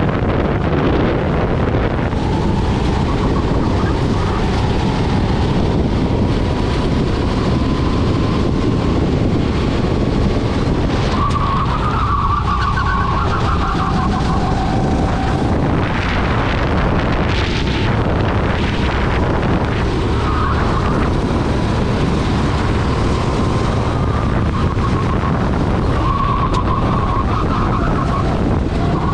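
Rental go-kart engine running flat out, heard from on board the kart, its pitch climbing on the straights and dropping back through the corners. A few short rough bursts of noise come a little past halfway.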